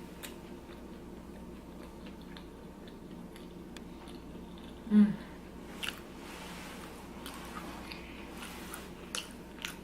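Close-up eating sounds of a person chewing vegan empanadas: soft mouth clicks and smacks over a steady low hum. About five seconds in comes one short, low throaty sound that drops in pitch, the loudest thing here.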